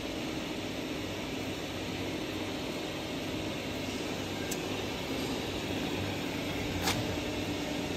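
Lift motor of an MIC-30L vacuum homogenizing mixer running with a steady hum as it raises the lid and mixing head off the tank. A sharp click comes near the end.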